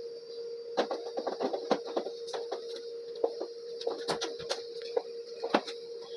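A small motor humming steadily, with irregular sharp clicks and knocks over it.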